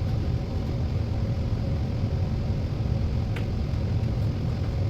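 A steady low hum of background machinery noise, with a faint click about three and a half seconds in.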